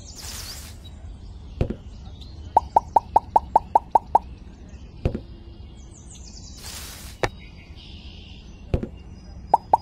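A quick run of short, identical cartoon-style pop sound effects, about five a second, as the toy apples vanish from the plot; another run starts near the end. A whoosh comes at the start and another about seven seconds in, with a few single low thumps in between.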